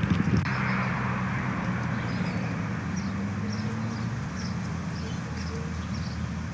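A steady low hum runs throughout. A short knock and a brief rush of noise come at the start, and a run of faint short high chirps, about two a second, comes in the middle.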